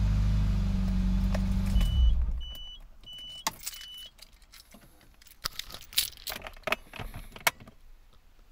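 Car engine idling, then switched off about two seconds in. Four short, high beeps of a dashboard warning chime follow, then keys jangle and click at the ignition.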